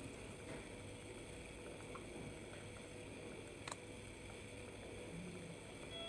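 Quiet room tone: a faint steady hum, broken by a single small click about two-thirds of the way through.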